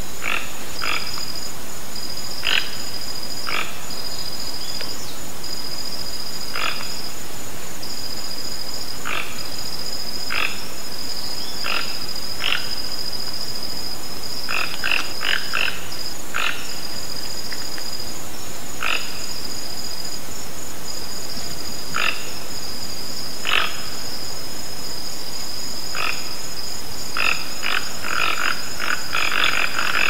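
Toco toucan giving short, harsh croaking calls every second or two, coming in a quick cluster near the end. Behind them run a steady high-pitched trill and an even hiss.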